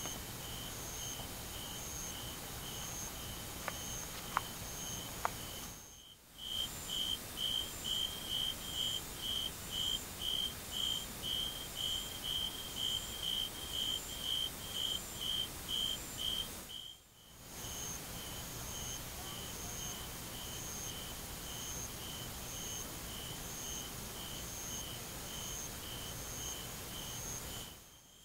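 An insect chirping in a steady series of short, high-pitched pulses, about two a second. The chirping fades out and back in twice.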